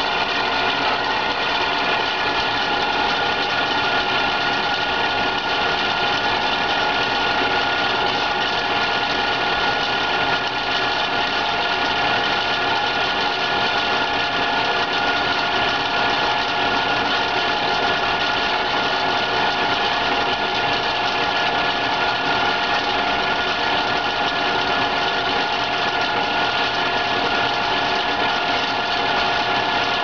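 BRISA WH2903A evaporative (swamp) cooler running with its blower motor and water pump both on, making a steady rattling noise that sounds like a failed motor bearing or bushing. The cause is the blower wheel (squirrel cage), which has slid out of position on its shaft and is rubbing against the housing.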